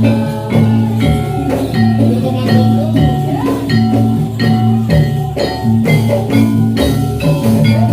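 Javanese gamelan music accompanying a Jathilan dance: metallophones struck in a steady beat over sustained ringing tones, with a wavering melodic line above.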